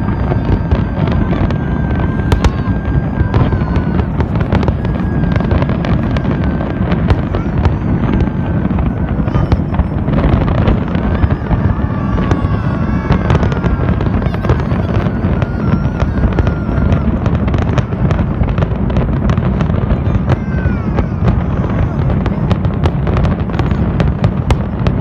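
Fireworks display: a dense, continuous barrage of bangs and crackles.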